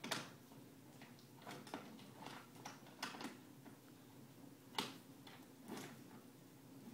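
Toy trains and track pieces clacking on a wooden train table as they are handled: irregular light clicks and knocks, the sharpest near the start and just under five seconds in.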